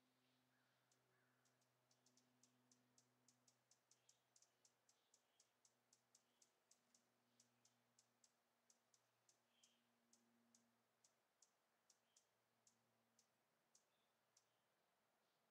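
Near silence broken by a faint series of sharp, high clicks, about two to three a second, starting about a second in and stopping near the end, over a faint low hum.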